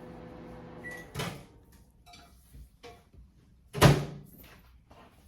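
Microwave oven running with a steady hum that stops about a second in with a short beep, then a click and, a little past halfway, a loud clunk of the microwave door being handled as the warmed icing is taken out.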